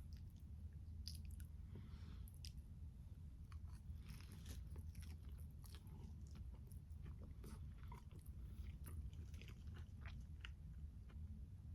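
Close-miked chewing of a tomato, peach and basil salad: a steady run of soft, wet bites and small clicks, over a low steady hum.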